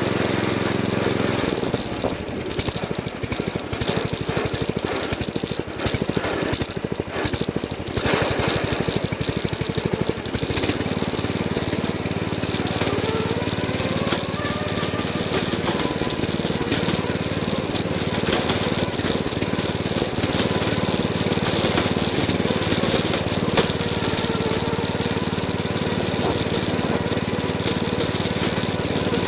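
A 36-speed riding lawn mower's engine running as the mower drives over rough grass, heard from a camera bolted to its hood. For several seconds after the start it is broken by rapid rattling and clatter. It then runs more steadily, with a whine that rises in pitch about halfway through.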